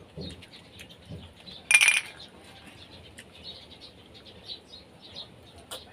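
Glass mugs of water clinking together in a toast: a short, bright ringing clink about two seconds in.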